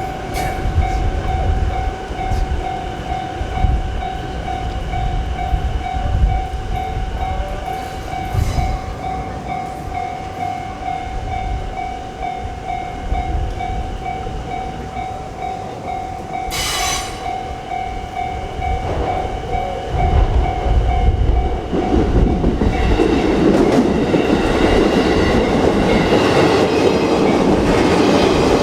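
Japanese railway crossing warning bell ringing its repeated electronic "kan-kan" over the rumble of a passing train. About 22 seconds in, the train noise grows much louder and covers the bell.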